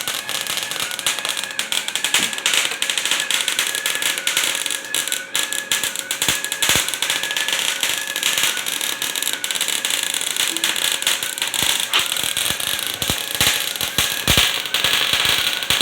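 Large metal 3D printer depositing a layer of high-carbon steel: a dense, continuous crackle of the welding arc, with a faint wavering whine under it.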